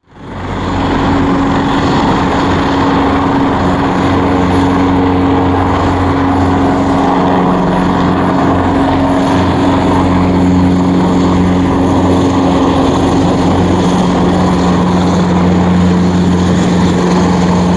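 Airbus H225M Cougar twin-turboshaft helicopter hovering low, its engines and rotors running with a steady drone of several tones over a rushing noise. It fades in during the first second, then holds steady.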